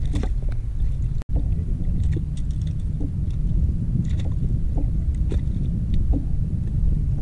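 Steady low rumble of wind buffeting the microphone, with a momentary dropout in the sound about a second in.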